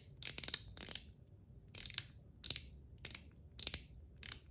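Bead-blasted zirconium One Pal mechanical fidget slider being snapped back and forth. It gives sharp, high-pitched metallic clicks roughly every half second, some of them doubled, with a tone its owner calls nowhere near as loud as the PEI version.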